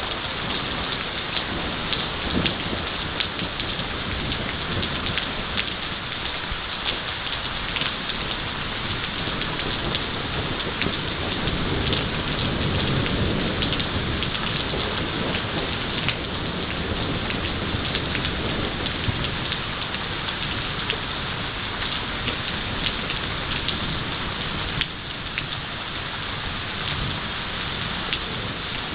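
Heavy thunderstorm rain falling steadily, with many close drops ticking on a surface. A low rumble of thunder swells and fades about eleven to sixteen seconds in.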